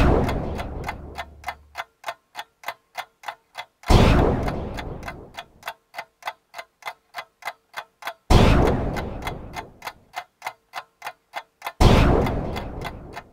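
Steady ticking, about three ticks a second, broken four times, roughly every four seconds, by a loud sudden hit that fades out over a second or two.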